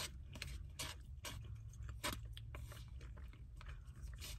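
Close-up chewing and mouth sounds, with short clicks of a plastic spoon in a foam cup, over a low steady hum.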